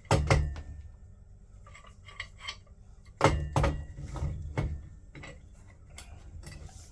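Small metal plumbing parts and tools clinking and clattering as they are handled: a loud burst of knocks at the start, lighter clicks, then a second cluster of clanks from about three to five seconds in.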